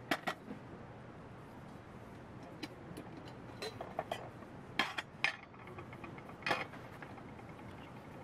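Light metal clinks and knocks of camping cookware being handled: a gas canister with a small backpacking stove set down on a table, then the lid lifted off a stainless steel camping pot and the pot moved. About a dozen short knocks, the sharpest just after the start and around five and six and a half seconds in.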